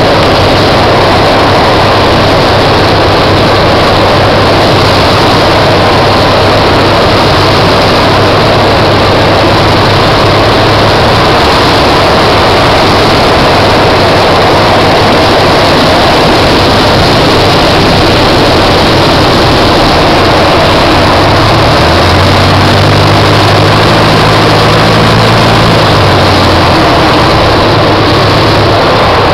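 Paulistinha light aircraft's piston engine and propeller running steadily, heard from inside the open-framed cockpit along with the rush of air, on the landing approach. A deeper engine note comes in for a few seconds near the end.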